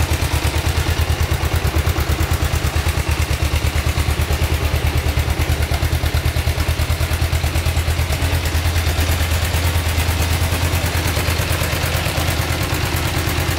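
Kawasaki GPZ500S's 498 cc parallel-twin engine idling steadily through a stainless aftermarket silencer, an even, rapid low exhaust pulse that holds its pace without revving.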